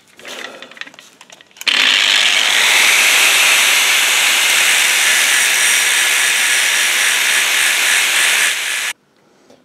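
Angle grinder grinding the face of a steel straight edge, taking down the high spots shown by the spotting as the bar is trued flat. The steady grinding starts abruptly about two seconds in and cuts off suddenly shortly before the end, with faint handling sounds before it.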